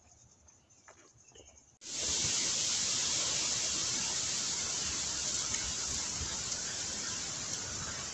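Faint insect chirping, then about two seconds in a loud, steady hiss starts suddenly and fades a little toward the end.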